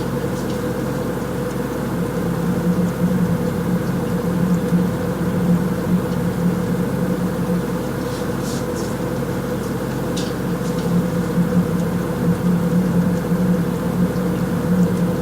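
Experimental drone piece: a steady low electric hum over a haze of noise, with a few faint high crackles about two-thirds of the way through.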